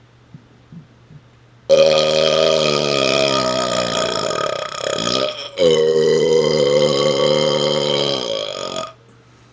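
Two long, loud belches back to back, each about three and a half seconds, the pitch of the first sliding slowly down, brought up from air swallowed on purpose; a few faint clicks come before them.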